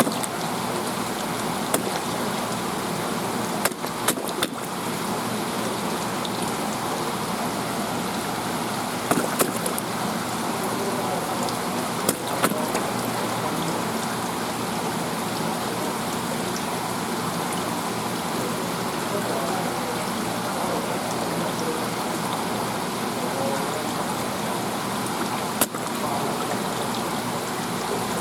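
A steady rush of water, broken by a few sharp cracks as a striped beakperch (ishidai) bites and crunches a sea urchin at the surface.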